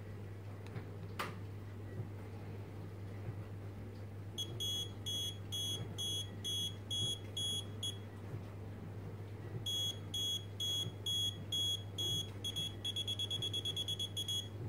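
Buzzer of a TSING pocket non-contact voltage tester beeping in a high pitch: two spells at about two beeps a second, then a fast run of about eight beeps a second near the end. The beeping is its signal that it senses AC voltage in the cable held to its tip, and the fast run comes as its LED bar lights fully.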